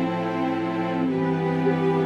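Slow, gentle background music with sustained string-like notes, the harmony shifting about a second in.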